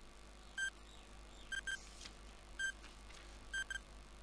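Countdown timer sound effect: short, high beeps about once a second, some in quick pairs, like a clock's tick-tock.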